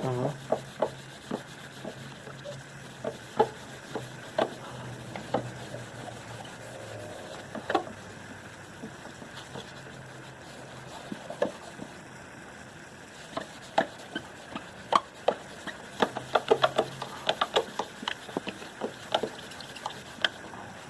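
Paper towel rubbed by hand with rubbing compound over a plastic headlight lens to polish off the haze, with scattered knocks and clicks from the handling that come thickest in the second half.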